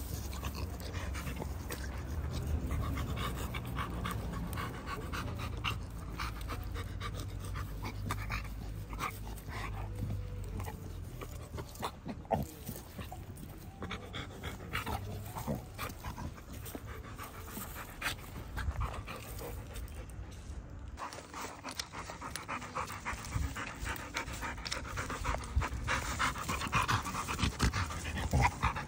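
Pit bull panting while it rolls and wriggles on its back, with scraping and crackling of dry dirt and leaves under it. The panting grows stronger near the end.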